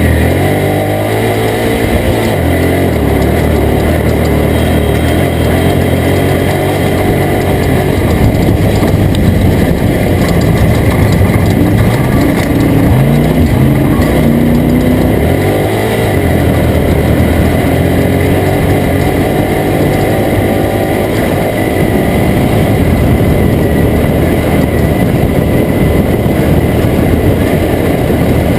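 Toyota Tacoma prerunner race truck's engine running hard, its pitch climbing and then dropping several times, as with gear changes and throttle lifts, over a steady rushing noise.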